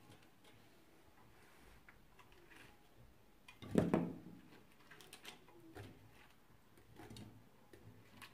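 Pieces of peeled cardoon stalk dropped by hand from a plate into an aluminium cooking pot: soft knocks and clatter against the pot and on the food already in it. The loudest clatter comes about four seconds in, with a few lighter knocks after it.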